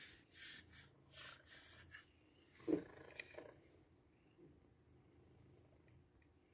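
A wooden back scratcher rakes a cat's fur in about four rhythmic scratching strokes over the first two seconds. Then, near the middle, the cat gives a single short moan, the loudest sound. After it there is only faint room noise.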